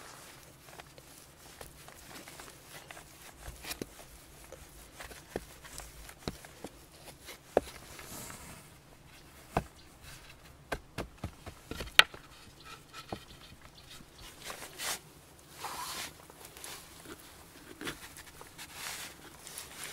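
Hands working wet mud and clay: soft pats, presses and scrapes. Scattered sharp clicks and knocks run through it, the loudest about twelve seconds in.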